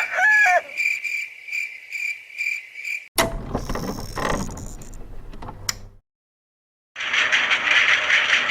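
A rooster's crow ends, then chirping pulses about twice a second, like crickets, run for about three seconds. After a cut come a mechanical clatter with a low hum and a few sharp clicks, a second of silence, and then a loud, steady whirring hiss.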